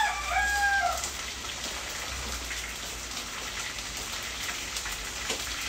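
Rain pattering steadily on a corrugated metal roof, a dense hiss full of small drop ticks. A cat gives one short meow at the very start.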